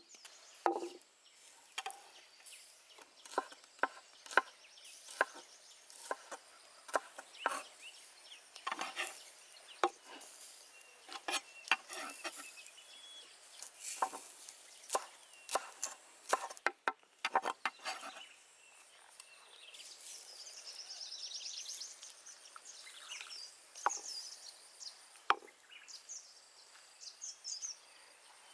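Irregular sharp knocks and chops on wood, in quick runs through the first eighteen seconds or so and only a few after that. Faint high chirping comes in during the second half.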